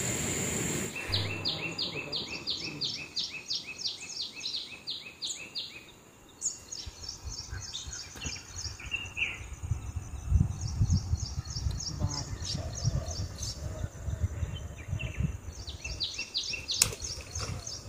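A rapid, even series of high chirps from a small animal, about six a second, in bouts that stop and start again. Low rustling sits under it in the middle, and there is one sharp click near the end.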